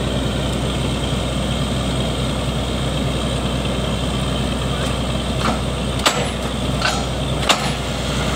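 Truck-mounted borewell drilling rig running steadily, its engine and machinery giving a constant drone. A few short sharp clicks stand out in the second half.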